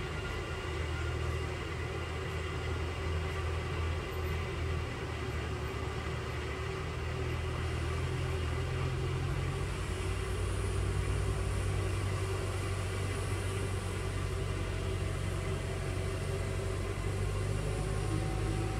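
Steady diesel rumble of road-work machinery running, with a faint hiss joining about halfway through as a tractor with a rotary sweeper brushes dust off the stripped road surface and comes closer near the end.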